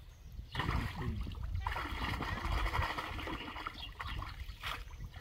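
Shallow muddy pond water sloshing and splashing as people wade through it and grope in it by hand, with a sharper splash near the end.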